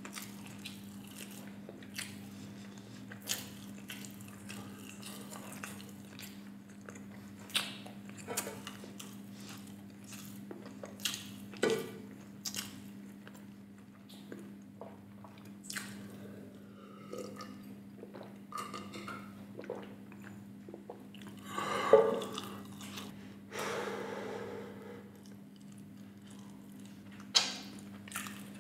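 Close-miked eating sounds: a man chewing and swallowing, then drinking beer from a glass mug, with scattered small wet clicks and a louder sudden sound about two-thirds of the way through, over a steady low hum.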